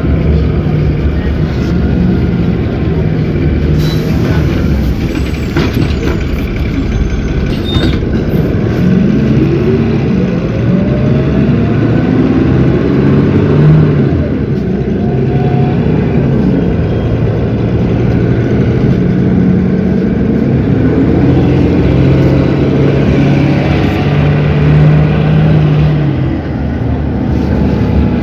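Cummins ISB 6.7 inline-six diesel of an Agrale MT17 city bus with an Allison automatic transmission, running under way, its note stepping up and down in pitch as the bus accelerates and slows, with a rising whine about ten seconds in.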